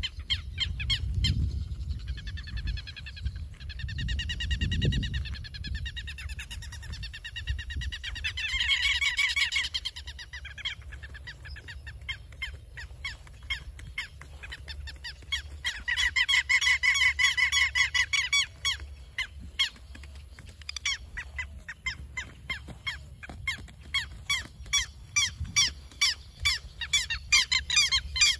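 Southern lapwings calling: rapid strings of sharp, repeated notes in bursts, loudest about halfway through and again near the end.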